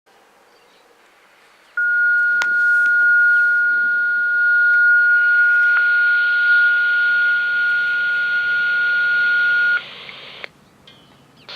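Dispatch alert tone over a scanner radio: one steady high-pitched tone held for about eight seconds over radio channel hiss. The hiss cuts off when the transmission ends, near the end.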